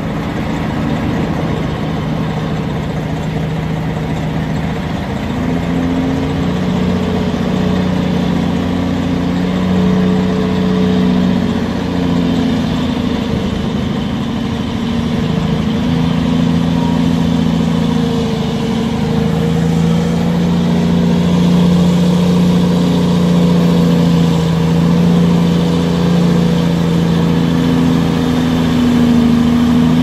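Caterpillar C15 diesel engine of a Pacific P16 off-road logging truck, hauling a full load of logs. Its pitch rises and falls several times, and it grows slowly louder as the truck comes closer.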